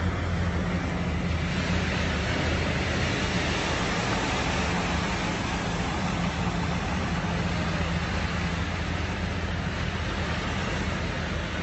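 Steady low engine hum from a motor vehicle under a constant broad hiss; the hum weakens about three-quarters of the way through.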